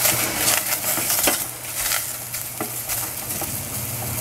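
Celery and red capsicum strips sizzling in oil in a stainless steel saucepan, stirred with a wooden spoon: scrapes and knocks of the spoon against the pan during the first two seconds, then steady sizzling.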